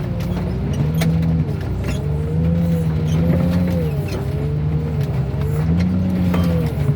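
Heavy equipment engine running under load, its pitch rising and falling every second or two as the machine works, with scattered sharp clicks.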